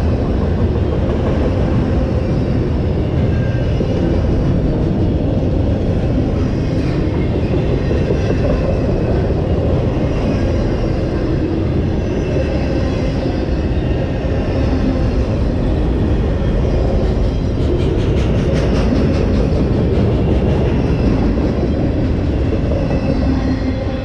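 Train of autorack freight cars rolling past at speed: a steady rumble of wheels on rail, with a run of rapid clicks from the wheels about two-thirds of the way through. The sound begins to fall away near the end as the last car goes by.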